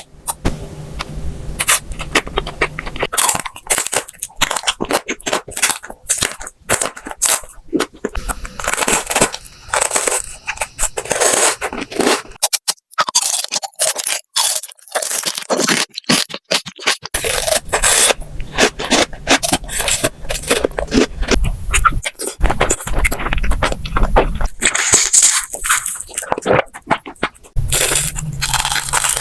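Close-miked eating sounds: food being bitten and chewed, with a dense run of crunching and crackling.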